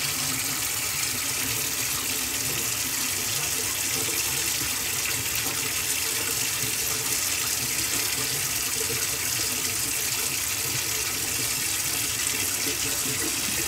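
Kitchen tap running steadily, its stream splashing over hands being washed with a bar of soap in a stainless steel sink.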